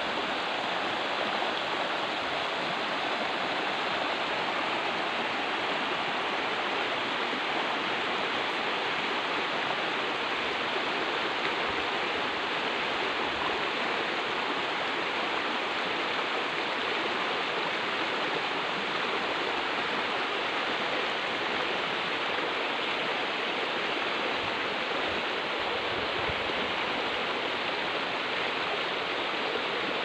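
Shallow river running over stones and gravel: a steady rush of flowing water.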